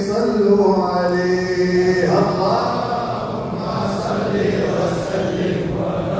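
A solo male voice singing an Islamic devotional chant line over a microphone, then, about two seconds in, a group of men joining in and chanting together in unison.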